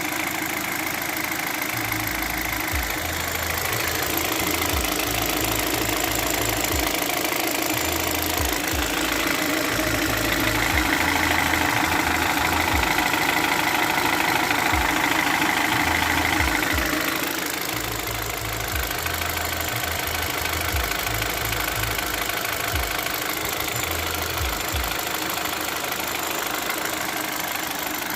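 Korean car engine running with a knock that the owner cannot place: a normal working engine, or piston knock. It gets louder for several seconds in the middle, then settles back.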